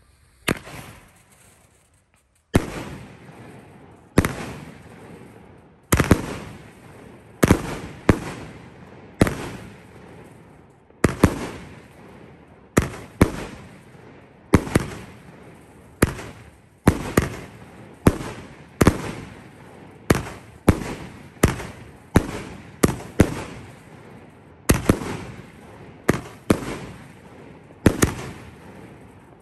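Aerial fireworks bursting one after another: some two dozen sharp bangs, about one a second, each trailing off in a long echo.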